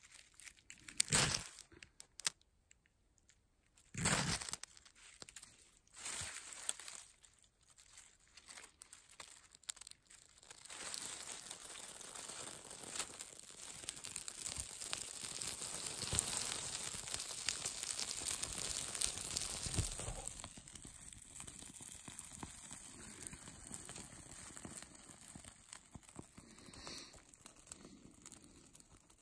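Birch bark and dry twigs being handled and snapped, with a few sharp cracks, then a small birch-bark fire catching and crackling. The crackle builds for about ten seconds, then settles lower.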